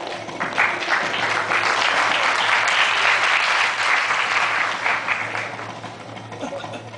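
Audience applauding: many hands clapping together, swelling within the first second and dying away over the last two seconds, over a steady low hum.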